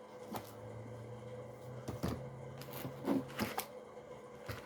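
Small cosmetic packaging being handled: a few scattered light clicks and rustles.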